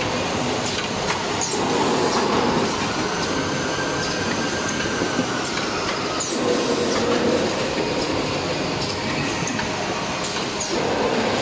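Full-auto tissue roll packing machine running: a steady mechanical clatter with scattered sharp clicks. It grows louder in stretches of a second or two, several times over.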